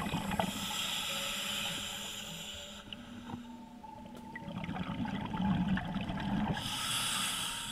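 Scuba diver breathing through a regulator underwater: a long hissing inhale, then a burble of exhaled bubbles about halfway through, then the hiss of the next inhale starting near the end.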